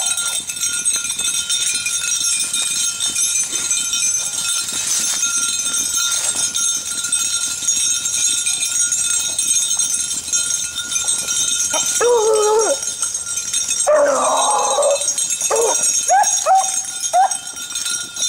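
Beagles baying and yelping: a series of short, wavering bays starting about two-thirds of the way in, over a steady background hiss.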